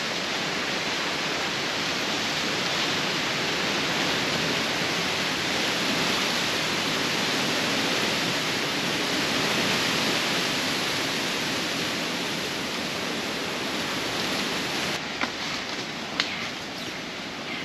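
Steady, even rushing hiss of forest ambience on the trail. The noise changes character about fifteen seconds in, where a few light clicks appear.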